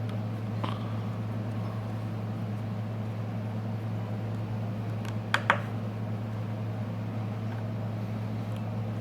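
Steady low hum, with two quick light clicks about five and a half seconds in and a fainter tick near the start, from small tools and parts being handled while unscrewing a smartphone's internal frame.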